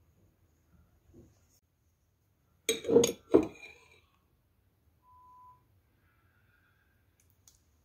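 A metal spoon clinking twice against a glass jar of adjika, about three seconds in, as sauce is scooped out.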